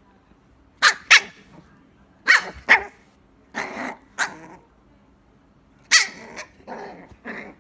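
Small puppy barking in short, high yaps, about ten in all, coming in pairs and little clusters with brief pauses between.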